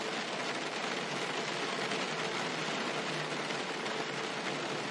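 Steady rain falling on a car's roof and windshield, heard from inside the car: an even hiss of many drops with no single strikes standing out.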